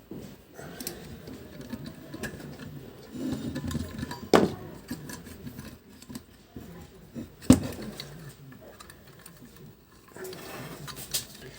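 Metal-on-metal handling noise as long-nose pliers are worked in the holes of a vacuum cleaner motor's rear fan to unscrew it, with two sharp metallic knocks about three seconds apart.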